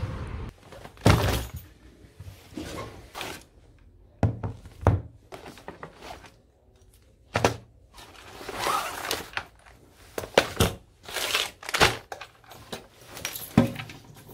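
Things being handled on a desk: a backpack rummaged and items set down, with a string of knocks and thunks and some rustling between them.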